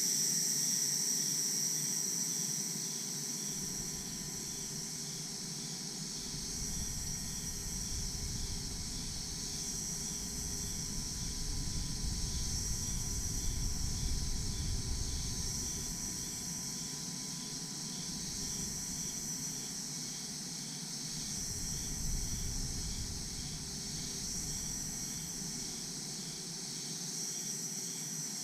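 Daytime tropical insect chorus with crickets among it: a steady high-pitched buzz with a fast, even pulsing trill beneath it. A low rumble comes and goes through the middle.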